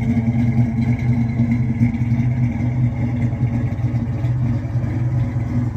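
A 1969 Plymouth Barracuda Formula S's original 383 big-block V8 idling steadily through its dual exhaust.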